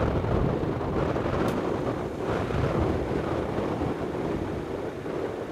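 Wind buffeting the microphone: a steady rushing noise that swells and eases in gusts.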